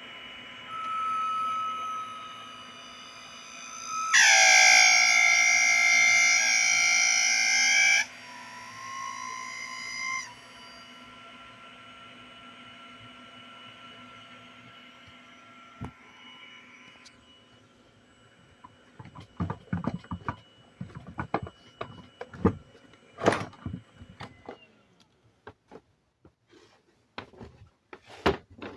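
Kawamoto NF2-250S well pump's electric motor powered up, giving a loud, high, buzzing whine for about four seconds before cutting off abruptly. It is the abnormal noise of a pump whose motor turns but sounds faulty. Irregular knocks and clicks follow near the end.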